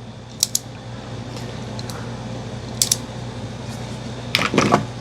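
A few small metallic clicks and some rustling from handling a push-button folding utility knife at a pocket: two quick clicks about half a second in, two more near the middle, and a short scuffle near the end, over a steady low hum.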